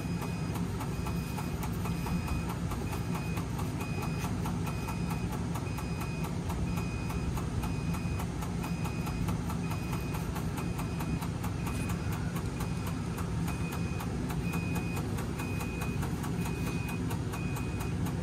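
Electric fuel pump of a sailboat diesel ticking rapidly and steadily with the key on, pushing fuel through to bleed air from the line after a fuel filter change. A short high beep repeats about twice a second throughout.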